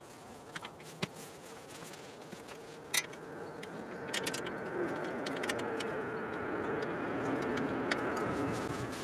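A few sharp clicks of hand tools on the aluminium mounting rail, then a steady drone that swells from about four seconds in and holds.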